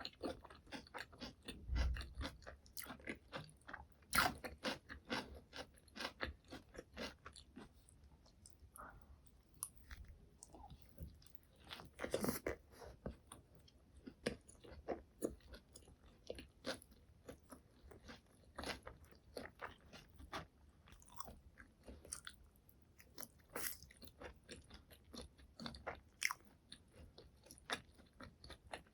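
Close-miked chewing and crunching of McDonald's burger and chicken nuggets: a steady run of crisp crackles and wet mouth clicks, with louder crunches about four and twelve seconds in.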